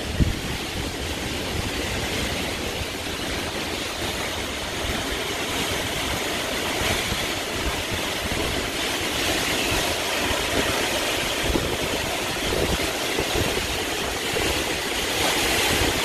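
Hurricane wind rushing steadily through the trees, with gusts buffeting the microphone in an uneven low rumble.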